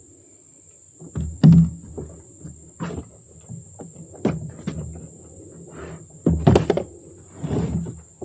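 Irregular knocks and thuds of footsteps and gear being handled in a small metal boat, with the loudest bumps about one and a half seconds and six and a half seconds in.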